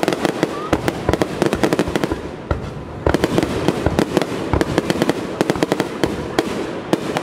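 Aerial fireworks bursting close overhead: a rapid, continuous barrage of bangs and crackles, many reports a second, thinning briefly about two and a half seconds in.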